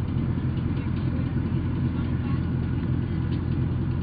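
Armored vehicle's engine running at a steady idle, low and even throughout, with faint voices over it.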